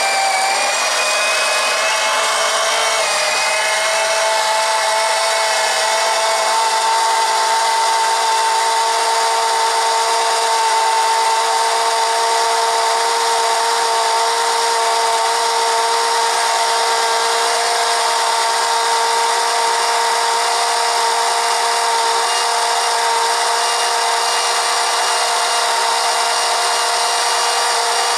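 Small 12-volt electric oil-extractor pump, powered from the mower's battery, running steadily as it sucks the engine oil out of a John Deere 140 diesel. Its motor whine wavers in the first few seconds, then settles to a steady pitch.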